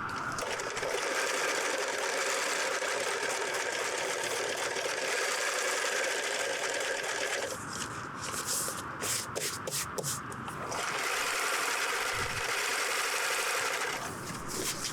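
Electric sewing machine stitching in two steady runs, stopping for a few seconds in the middle, where a few light clicks are heard, then starting again and stopping near the end.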